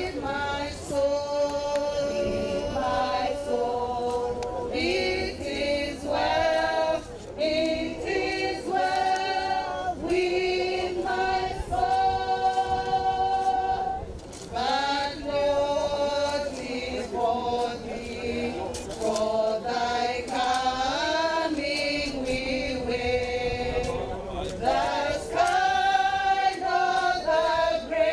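A group of voices singing together, with long held notes.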